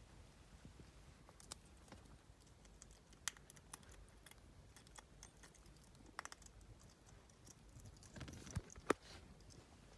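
Faint scattered small clicks and taps from a pet hedgehog moving about close to the microphone, with a few sharper ticks about three and six seconds in and a louder cluster near the end.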